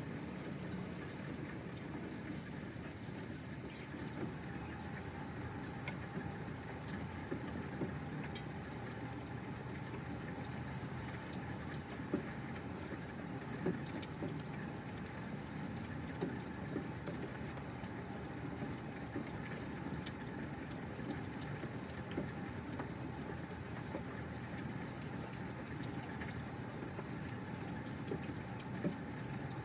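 Steady rain falling in a thunderstorm, with scattered sharper ticks of individual drops.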